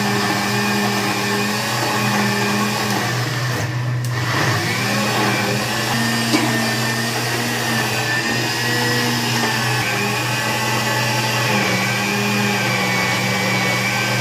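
Electric mixer grinder (mixie) running steadily, grinding soaked dried red chillies with a little water into a paste. Its hum shifts in pitch a couple of times.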